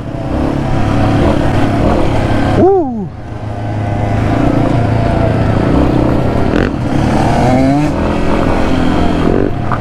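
Yamaha XT250's air-cooled single-cylinder four-stroke engine running under throttle while ridden over a dirt trail. Its pitch briefly rises and falls about three seconds in and climbs again near the end.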